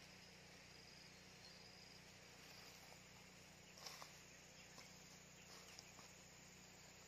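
Near silence: faint riverside ambience with faint insect chirping, and a few soft clicks about four seconds in.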